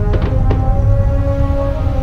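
Music with several held, steady notes over a continuous low rumble, with a couple of faint firework cracks near the start and about half a second in.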